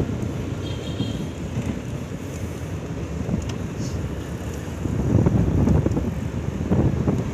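Wind buffeting the microphone in a low, gusting rumble that grows louder about five seconds in.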